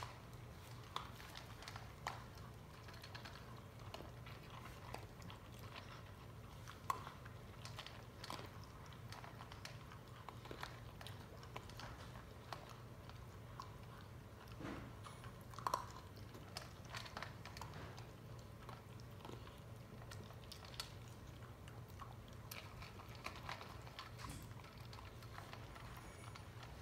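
Two puppies crunching dry kibble from a stainless steel bowl: steady, irregular chewing and crunching, with a few louder sharp clicks about seven and sixteen seconds in.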